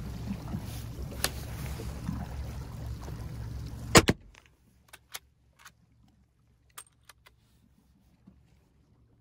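A single rifle shot about four seconds in, a sharp double crack and by far the loudest sound, fired from a small boat. Before it there is a steady low rumble from the boat. After it the sound drops to near silence with a few faint clicks.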